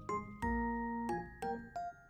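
Gentle background music: a light melody of struck, bell-like notes, a few a second.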